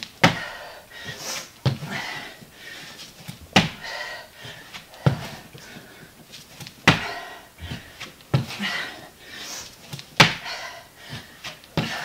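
A person landing on the floor in repeated power-down-to-squat reps, dropping the chest to the floor and popping back up, with a thud about every one and a half to two seconds. Hard breathing can be heard between the thuds.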